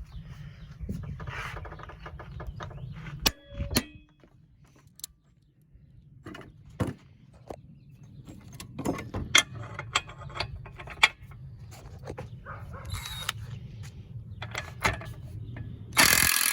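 Metal tool clicks, knocks and ratcheting as a bolt is worked on, over a low steady rumble. Near the end comes a short, loud burst from a Bauer 1/2-inch impact wrench hammering, breaking a bolt torqued to 250 ft-lb loose easily.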